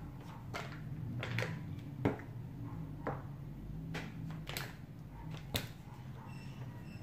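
Eating sounds at a table: scattered sharp lip smacks, clicks and small taps, about seven in all, the loudest about two seconds in. Under them runs a steady low hum.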